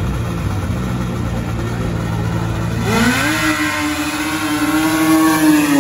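Racing snowmobile engines rumbling low at the start line, then revving sharply and climbing steeply in pitch about three seconds in as the sleds launch, holding a loud, high engine note.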